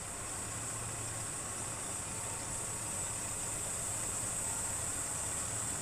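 Steady rushing noise of travel along a road, wind and tyres on the move, with an even high hiss over it.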